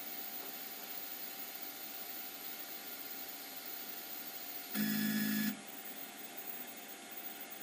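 Stepper motors of a homemade wire-laying 3D printer: a steady faint hum, then a loud, short whine with a rising-and-holding tone for about half a second, about five seconds in, as the head moves.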